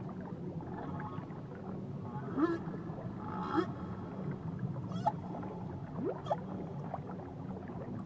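Whales calling: a series of short rising moans and whistles a second or two apart, one long upward sweep near the middle, with a few faint clicks over a steady low hum.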